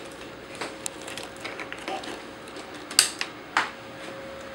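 Clicks and knocks of a Soul of Chogokin GoldyMarg toy robot figure being handled: parts clicking into place and the figure knocking on the tabletop as it is stood up, with the sharpest knocks about three seconds in. A faint steady hum runs underneath.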